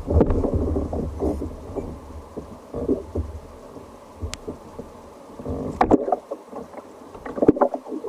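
Water lapping and slapping against a fishing kayak's hull, with irregular knocks from gear and the angler moving aboard, the loudest just before six seconds and around seven and a half seconds in. A low rumble runs under the first three and a half seconds.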